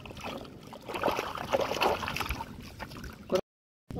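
Two hooked fish thrashing and splashing in muddy shallow water at the bank, with the loudest splashing in the middle. The sound ends in a sharp knock and a sudden cut to silence just before the end.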